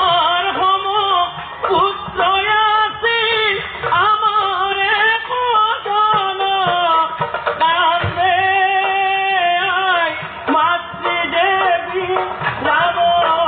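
Nagara naam devotional singing: a lead male singer sings long, wavering, gliding melodic lines, with drum beats underneath.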